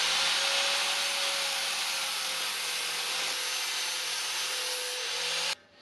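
Handheld grinder running at full speed as it grinds down a steel alignment dowel on an LS engine block, with a steady high whine over loud grinding noise. It cuts off suddenly about five and a half seconds in.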